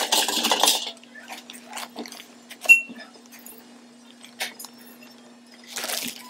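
A spoon scooping potting soil out of a glass jar into a plastic zip-top bag: rustling of the bag and soil near the start and again near the end, light scraping ticks between, and one sharp clink of the spoon against the glass about two and a half seconds in, the loudest sound.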